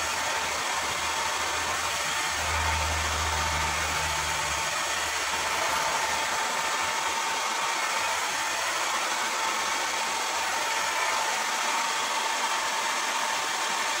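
Hand-held hair dryer blowing steadily, a constant whine over the rush of air. It starts abruptly right at the beginning.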